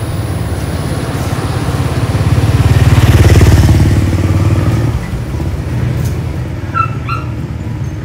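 Carrier inverter window-type air conditioner running with a steady low hum from its compressor and fan. The hum swells louder in the middle and eases back about five seconds in. The compressor is running again, the sign that the P4/P8 fault has been cleared.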